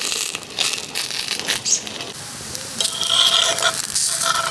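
Sharp metallic clicks and knocks of cookware over a crackling wood fire, then a metal spatula scraping under a roti on an iron tava, with a ringing metallic squeal from about three seconds in that breaks off briefly and returns near the end.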